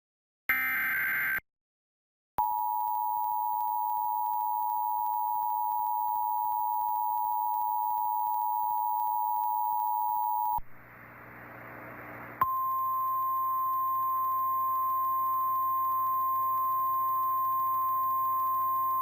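Emergency Alert System tones for a tornado warning. First the last short burst of SAME digital header data, then after a brief gap the EAS two-tone attention signal held steady for about eight seconds. After about two seconds of radio hiss comes NOAA Weather Radio's single steady warning alarm tone over hiss.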